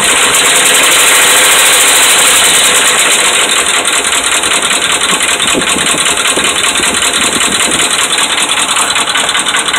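Dodge Ram 5.7 Hemi V8 running, with a fast, steady knocking throughout: the sign of worn connecting rod and crankshaft bearings.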